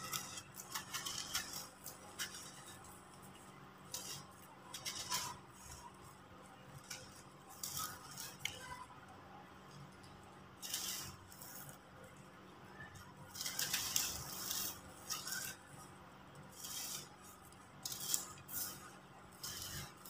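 Dry sandy soil blocks crushed and crumbled by hand, crunchy and gritty crackling in short bursts with quiet pauses between, as loose grains trickle through the fingers.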